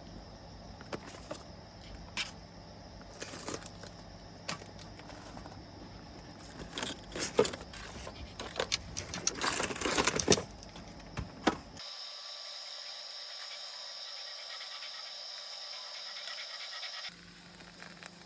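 Scattered light clicks and knocks of small objects being handled, busiest about halfway through. Then a few seconds of steady hiss.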